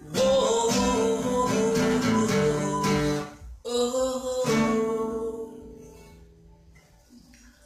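Guitar chords strummed loudly for about three seconds, then after a short break two more strums that ring on and fade away to quiet over the last couple of seconds.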